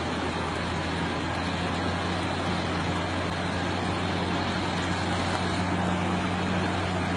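Volvo truck's diesel engine running steadily under load while it wades through floodwater, with a continuous rush of water around the cab and wheels.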